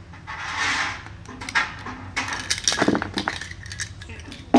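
Clicks, light clinks and a short rustle of a plastic UniFi G3 security camera and its network cables being handled, with one sharper knock near the end.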